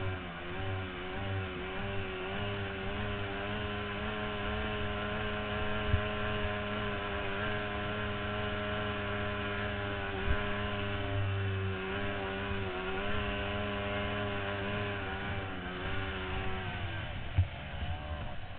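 Outboard engine of a C-stock racing runabout running at a steady high pitch at speed, with a few sharp knocks along the way; the engine note drops away near the end.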